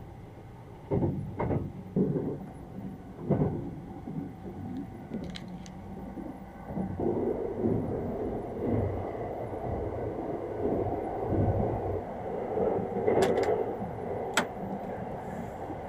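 Running noise of the Sunrise Izumo sleeper train heard from inside a compartment: a steady low rumble that rises about halfway through, with a few thumps in the first few seconds. Near the end come two sharp clicks as the compartment door's lock lever is worked.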